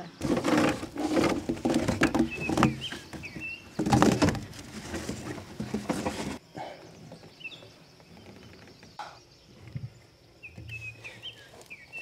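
Rustling and scraping of RV hookup hoses being handled, including a corrugated sewer hose rubbing against the trailer's metal side, for about six seconds, then much quieter. Birds chirp briefly several times throughout.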